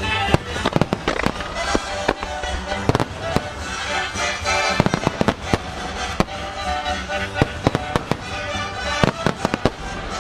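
Aerial firework shells bursting in quick succession, a dense run of sharp bangs, with music playing underneath.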